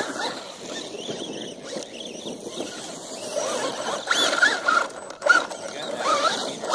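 Radio-controlled truck's motor whining as it races past and drives away, the pitch rising and falling, with a sharp clatter a little past five seconds.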